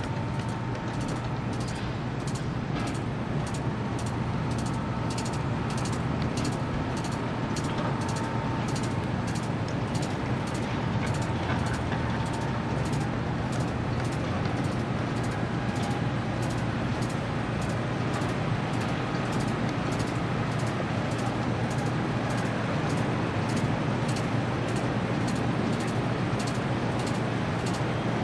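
Steady low engine drone mixed with city traffic noise, unbroken throughout, with a faint steady whine in the first half.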